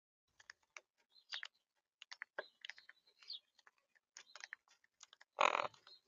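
Monk parakeets feeding at a seed tray: irregular clicks and crunches of beaks cracking peanuts and seeds. There is one louder, rougher burst about five and a half seconds in.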